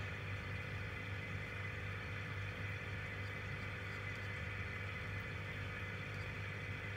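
Steady low electrical hum with a light hiss, the background noise of an open microphone line, unchanging.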